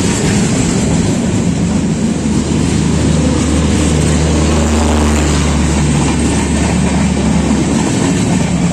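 Rajdhani Express train running at speed: a loud, steady rush and rumble of wheels on rail and air. A low droning hum joins it about three seconds in and fades out a second or so before the end.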